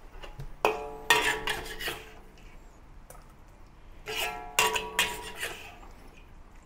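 Metal wok spatula clanging and scraping against a wok while the stir-fry is dished out. The strikes come in two quick runs, about a second in and again about four seconds in, each clang leaving a ringing tone.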